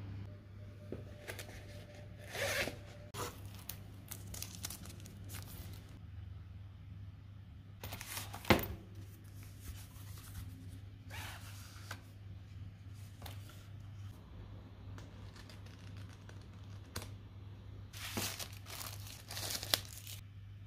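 Hands handling paper accessories in a fabric carry case: a card and a user manual rustling and crinkling in scattered bursts, with a single sharp tap about eight and a half seconds in, over a steady low hum.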